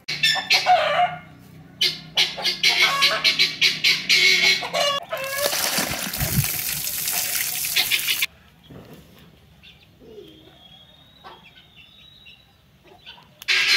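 Chickens clucking in a quick run of short calls for about five seconds, then a loud rushing noise for about three seconds, followed by a much quieter stretch.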